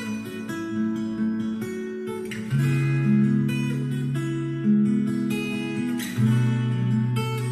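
Acoustic guitar music with strummed chords and held bass notes, played back through Panasonic SB-PM770 speakers as a sound test.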